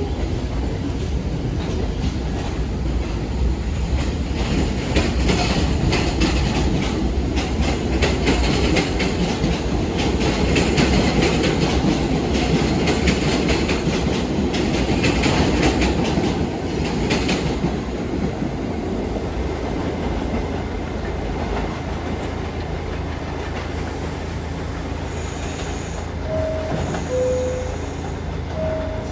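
New York City subway train running through the station, its wheels clattering over the rail joints for well over half the time before the sound eases off. Near the end a two-note falling chime sounds twice.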